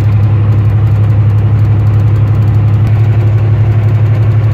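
Steady low drone of a semi truck's diesel engine and road noise, heard inside the cab while driving.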